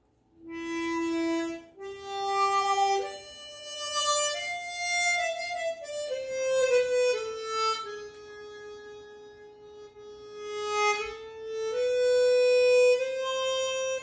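Seydel Saxony chromatic harmonica, fitted with a slider mouthpiece, played as a sound test: a slow melody of long held notes that climbs and then settles lower.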